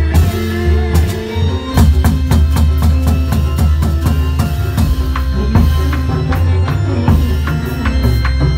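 Live band music for a Reog Indramayu masked dance: a drum kit with bass drum and snare keeps a busy, steady beat over a bass line and held melody notes.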